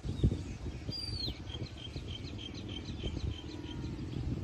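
Outdoor ambience with a steady low rumble and a low thump just after the start. A bird gives a falling whistle about a second in, then a quick run of about ten short repeated high notes.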